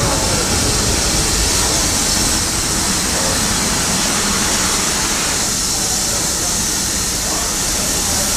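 Steam locomotives moving slowly past at close range, with a steady hiss of steam over a low rumble.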